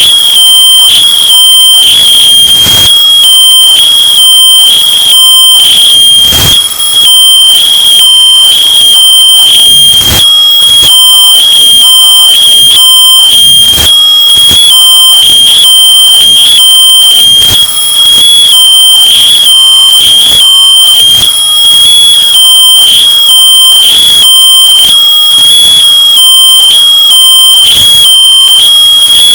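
Smoke alarm's high-pitched piezo tone sounding without pause, bass-boosted and pushed to full loudness so that it is harshly distorted, with a crackle running through it.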